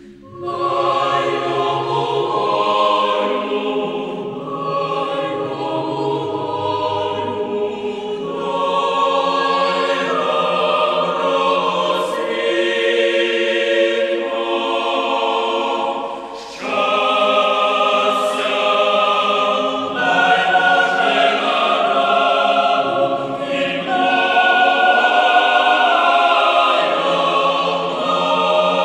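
Choir singing slow, sustained music, with a short break about halfway through.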